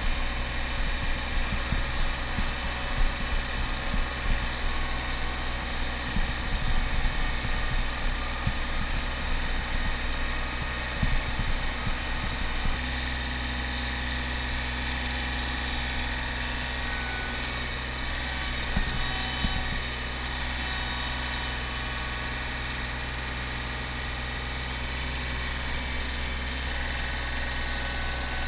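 An engine running steadily at a constant speed, with irregular knocks and rattles over it during roughly the first half.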